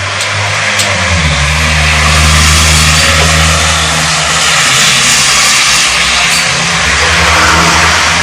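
City street ambience: loud, steady traffic noise with the low hum of vehicle engines underneath.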